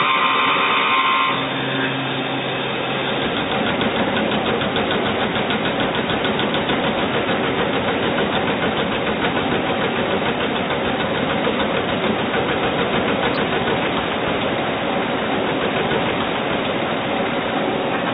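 Doosan Puma GT2100MS CNC lathe running with a steady mechanical noise. A high whine stops about a second in.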